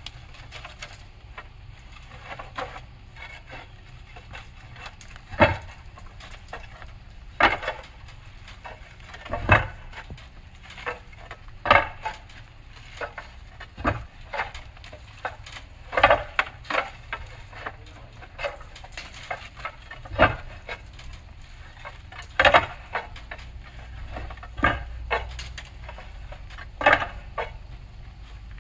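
Concrete barrel roof tiles clacking as they are set down onto stacks, a sharp knock about every two seconds with lighter clinks between, over a low steady rumble.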